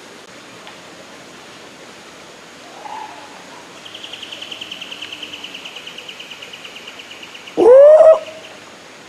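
Rainforest birds calling over a steady background hiss: a short call, then a rapid pulsed trill lasting about three and a half seconds, then one loud rising call near the end.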